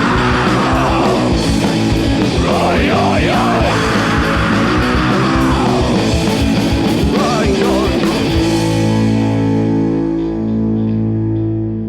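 Oi punk rock played by a full band: loud distorted electric guitars over driving drums. A bit over two-thirds of the way through, the drums stop and a distorted guitar chord is left ringing out.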